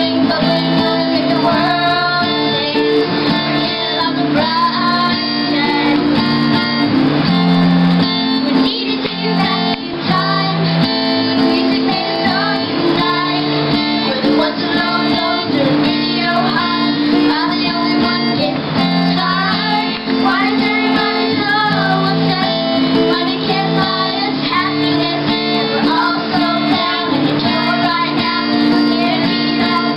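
Two young girls singing along to a recorded pop track with strummed guitar and a steady beat.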